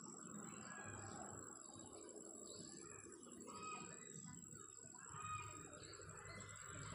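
Faint birdsong: scattered short chirps and brief calls from several small birds, repeating throughout.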